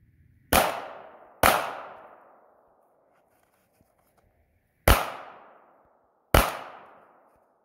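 Four pistol shots, each followed by a fading echo. The first two come close together, about a second apart; after a pause of about three seconds, two more follow about a second and a half apart.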